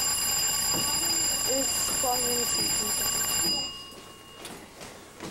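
Electric round-timer bell of a boxing gym ringing steadily, then cutting off suddenly about three and a half seconds in. Men's voices are faintly heard under it.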